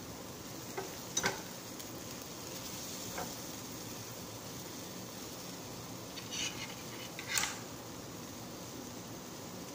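Black plastic spatula stirring and scraping scrambled egg with moringa leaves around a frying pan, over a faint steady sizzle. A few short scrapes and knocks against the pan stand out about a second in, around three seconds, and twice near seven seconds, the last being the loudest.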